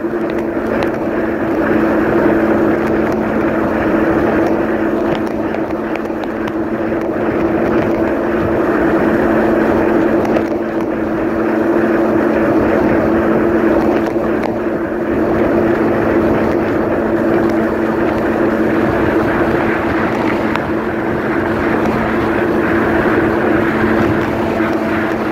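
Kawasaki personal watercraft running at a steady cruising speed: an even engine drone over the hiss of water rushing past the hull.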